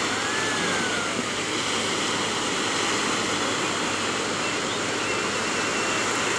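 Steady rush of small waves washing onto the beach, an even noise with no pauses.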